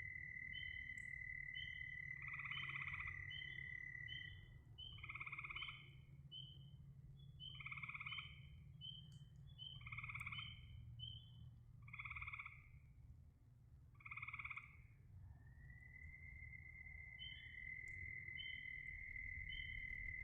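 Night chorus of frogs: a steady high trill drops out about four seconds in and slides back in near the end. Over it, short chirps repeat about twice a second, and a louder croak comes six times, roughly every two seconds. A low steady rumble runs underneath.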